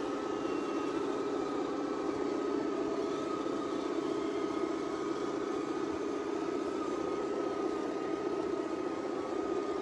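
Electric motors and gear drives of RC scale crawler trucks whining steadily as they crawl along at an even speed.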